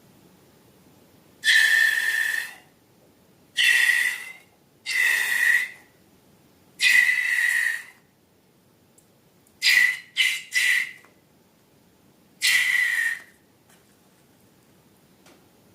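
Air squealing out through a stretched balloon neck in eight short bursts, most about a second long, with three quick ones in a row near the middle, each at a steady high pitch over a hiss.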